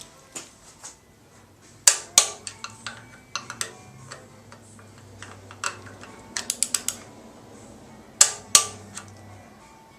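Metal hand tools clinking and knocking against the engine while a mechanical fuel pump is fitted and bolted onto a small-block Ford 302, with a quick run of clicks a little past the middle.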